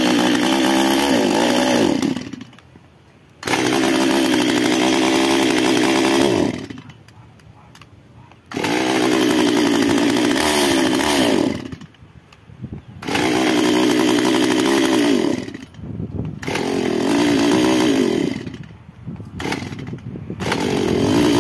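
Stihl MS 192T two-stroke chainsaw engine revved hard about six times in bursts of two to three seconds, dropping back to a low idle between, the last revs ragged and uneven. The saw has a fault where it runs well at low speed but dies when opened to full throttle, still present after the carburettor's L and H screws were set to factory settings.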